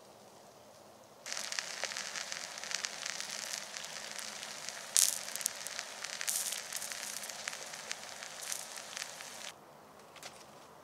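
Food frying in a pan over a campfire: a dense sizzle scattered with pops and crackles, starting abruptly about a second in and cutting off shortly before the end.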